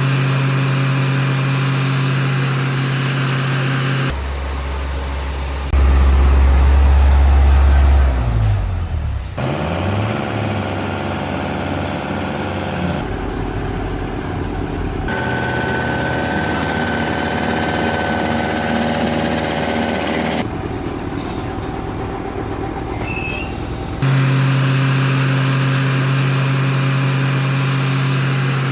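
Heavy road-construction machinery engines running steadily, with one engine revving down and back up about eight to ten seconds in. The sound changes abruptly several times between machines.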